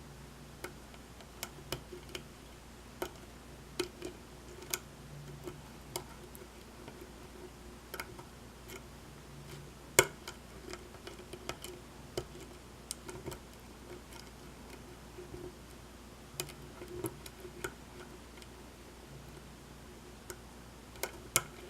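Irregular light metallic clicks and ticks of a lock pick probing the pins of a pin-tumbler lock under tension, with one sharper click about halfway through.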